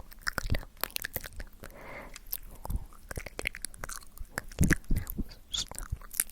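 Close-miked ASMR mouth sounds: wet lip smacks and tongue clicks in quick, irregular succession, with a few heavier smacks about four and a half seconds in.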